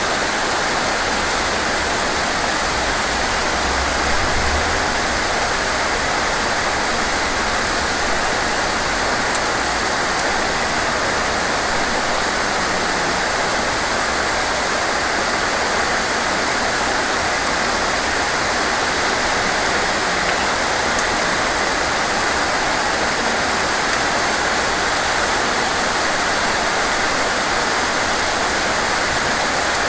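Rain falling steadily as a dense, even hiss with no single drops standing out.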